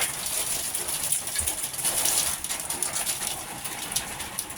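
A hail and rain shower pelting down: a dense, irregular patter of small ticking hailstone impacts over the steady hiss of heavy rain.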